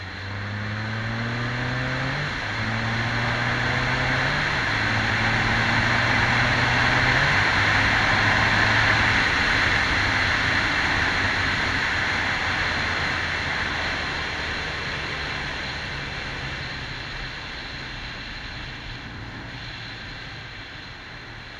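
Can-Am Spyder F3S's Rotax 1330 three-cylinder engine accelerating up through the gears, with shifts about two, four and seven seconds in, under a rush of wind on the microphone. The wind rush grows loudest midway and then fades.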